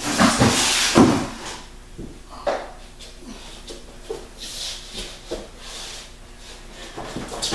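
A child running and stomping across a hardwood floor: a loud burst of thumps and rustling in the first second, then scattered footfalls and knocks.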